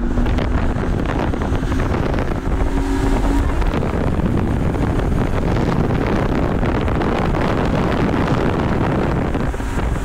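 Twin outboard motors on a tow boat running up to speed to pull a water skier out of the water, with the rush of the churning wake and wind buffeting the microphone. An engine hum is plain in the first few seconds, then is largely covered by the rush.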